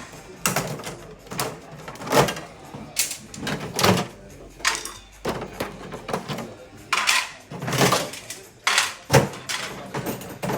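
Hard plastic parts of a Geberit cistern's flush mechanism being unclipped, knocked and pulled out quickly: a run of irregular clicks, knocks and clatters.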